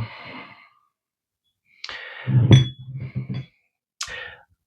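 Glass tonic-water bottle being handled and tipped upside down to stir the sediment back in, with a sharp glassy clink about two and a half seconds in.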